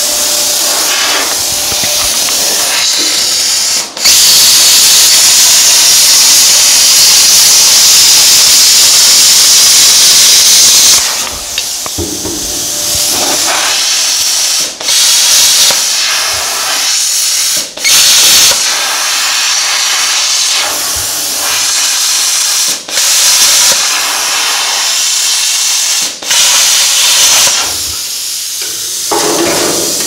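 Plasma cutter cutting sheet metal: a loud, steady hiss of air and arc that runs for several seconds at a time and cuts out briefly now and then. It is loudest and longest from about 4 to 11 seconds in. The torch tip is worn, which is probably why the cut is breaking down.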